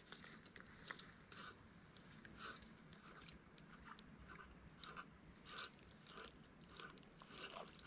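Faint, soft ticking of a spinning reel being cranked to retrieve the line, about two or three small clicks a second.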